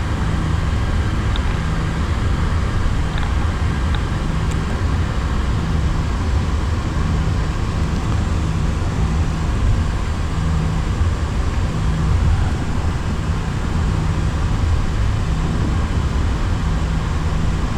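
Steady low rumble and hum inside an Airbus A340-300 flight deck as it taxis on idling engines, with a low hum in the rumble that comes and goes.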